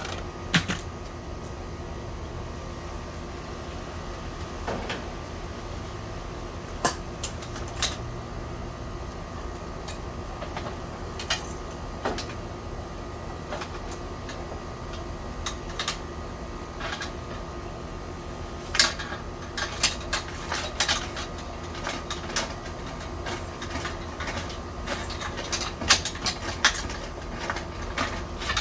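Rotary dryer-vent cleaning brush on flexible rods spinning inside the dryer vent duct, knocking and clattering against the duct walls over a steady motor hum; the knocks come more often in the second half.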